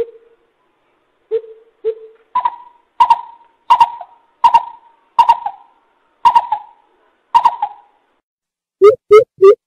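Coucal calling: a few single deep hoots, then a slower series of higher, rougher notes about one every 0.7 seconds, then a fast run of deep, booming hoots near the end.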